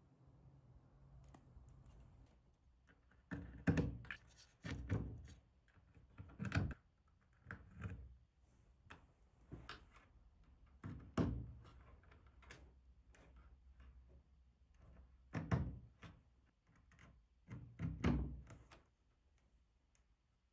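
Handling noise from wiring work: irregular knocks and clicks as wire connectors are plugged together and crimped spade connectors are pushed onto the terminals of metal-cased bridge rectifiers resting on a wooden board.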